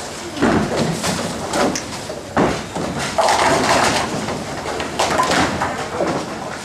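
Ten-pin bowling ball landing on the lane and rolling, then striking the pins about two and a half seconds in, followed by about a second of loud clattering pins.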